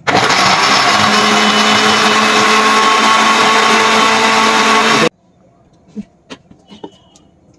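Electric blender motor running at full speed, churning mangoes, milk, sugar and ice into mango juice (aam ras). It runs steadily for about five seconds, then cuts off abruptly. A few light clicks follow as the jar is handled.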